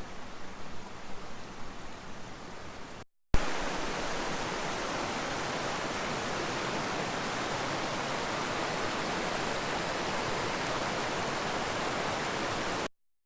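Waterfall: a steady, even rush of falling water that starts abruptly a few seconds in, after a short break, and cuts off just before the end. It is preceded by a few seconds of quieter, uneven noise.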